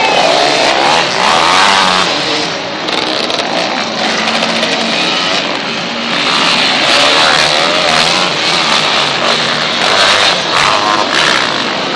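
Off-road motorcycle engines revving, their pitch repeatedly rising and falling as the bikes accelerate and brake around a dirt track, mixed with crowd voices.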